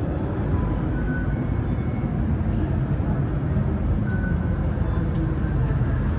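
MTR Island Line M-Train (Metro-Cammell electric multiple unit) running into the station behind the platform screen doors: a steady low rumble of wheels and traction equipment.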